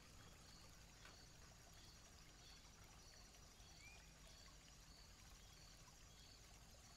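Near silence: faint forest room tone, with a faint high chirp repeating about every half second.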